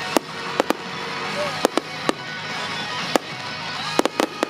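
Fireworks bursting in a rapid series of about ten sharp bangs over a steady crackle. Music plays underneath.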